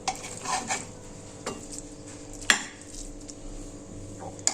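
Serving spoon clinking and scraping against a pot and plate as hot khichdi is dished out: a handful of short clinks, the loudest about two and a half seconds in, with a faint steady hum underneath.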